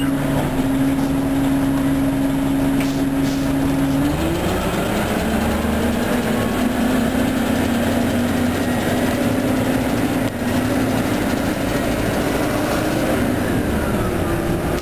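Orion transit bus engine running with a steady low hum; about four seconds in its pitch rises and holds higher as the engine speeds up, with fainter whines gliding above it.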